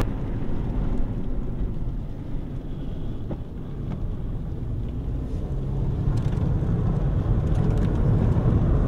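Steady low rumble of a vehicle heard from inside its cabin, with a few faint clicks, growing somewhat louder in the second half.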